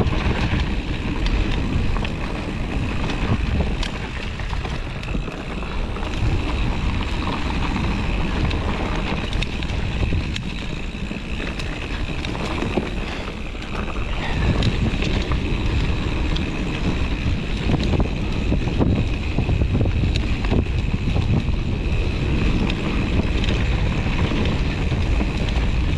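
Wind rushing over a GoPro's microphone, with the rumble and rattle of a mountain bike descending rough dirt singletrack. Scattered clicks and knocks run through it.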